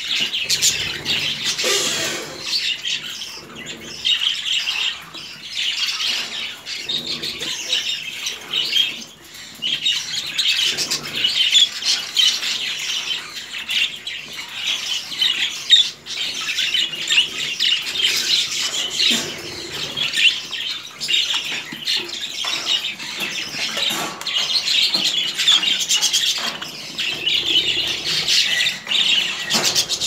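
A flock of budgerigars chattering without a break, a dense mix of quick chirps, warbles and squawks.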